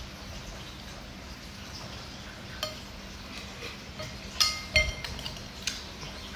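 Metal spoon clinking and scraping against a glass bowl: a few sharp clinks with a brief glassy ring, the two loudest close together about four and a half seconds in.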